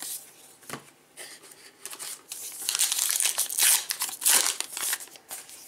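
Foil wrapper of a 2019 Topps Gypsy Queen baseball card pack being torn open and crinkled: a few light ticks, then a run of rustling and tearing, loudest just past the middle.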